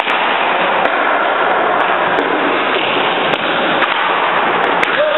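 Steady, loud ice-rink din with a few scattered sharp clacks.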